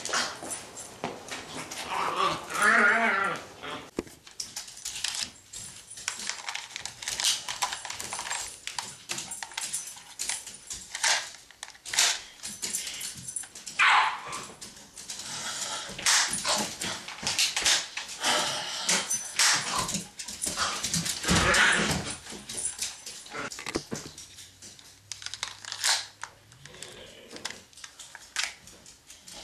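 A dog barking and whining at intervals.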